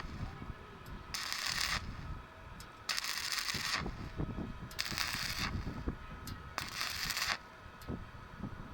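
Stick-welding arc with a 6013 rod on thin 1.6 mm steel, crackling and hissing in four short bursts about two seconds apart as the arc is struck and broken again.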